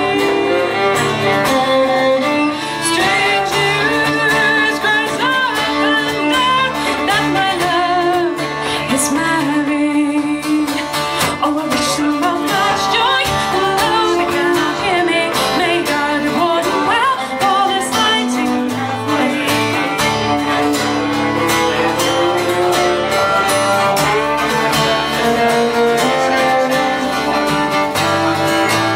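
Folk song played live on fiddle with guitar accompaniment, an instrumental passage between verses.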